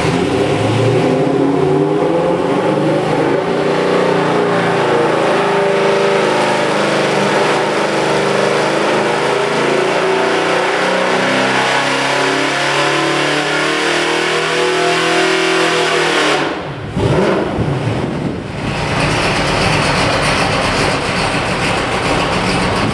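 Ford 408 Windsor stroker V8 making a full-throttle engine-dyno pull, heard outside through tall vertical exhaust stacks. The pitch climbs steadily for about fifteen seconds, then the throttle is shut and the exhaust note drops off abruptly, leaving a rushing sound.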